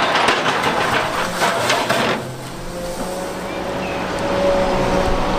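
Large tracked excavator running, its grapple handling armour boulders: clattering knocks of rock in the first two seconds, then a steadier engine hum with a thin steady whine from about halfway through.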